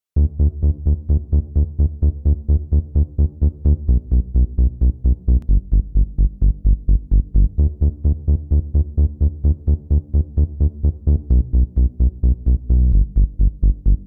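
Electronic intro music with a fast, even pulse of about four beats a second over steady bass notes.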